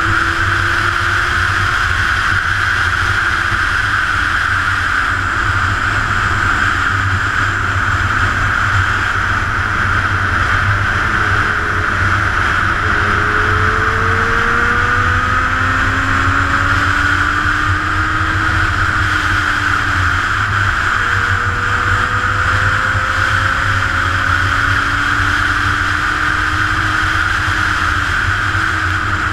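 Honda CBR1000RR sportbike's inline-four engine running at road speed under a steady rush of wind and road noise. The engine note climbs slowly several times and drops back in between.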